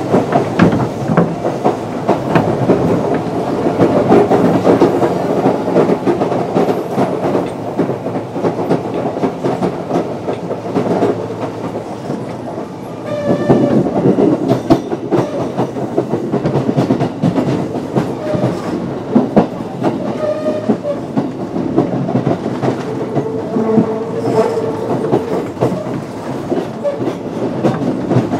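Kintetsu 8600 series resistance-controlled electric train running, with the steady rumble of wheels on rail and repeated clicks over rail joints. A short high-pitched tone rings out about halfway through.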